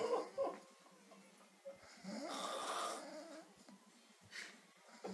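A man snoring in his sleep: a short snort at the start, then one long snore lasting about a second and a half, a couple of seconds in.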